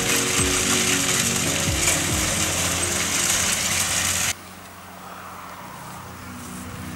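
Fendt 936 Vario tractor's six-cylinder engine running under load while it pulls a Simba cultivator, with a fast mechanical rattle from the implement. About four seconds in, the sound cuts off abruptly to something much quieter.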